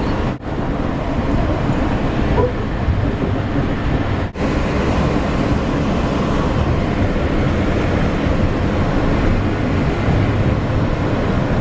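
Steady low rumble and running noise of a moving vehicle heard from inside, cut off for an instant twice, about half a second and four seconds in.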